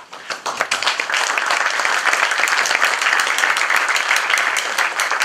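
Audience applauding, growing from scattered claps into steady applause about a second in.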